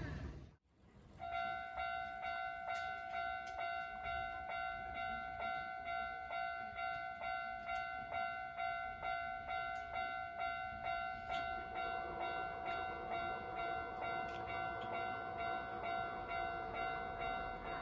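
Japanese level crossing's electronic warning bell ringing, starting about a second in and striking about three times a second. From about twelve seconds in, the rumble of an approaching train builds beneath it.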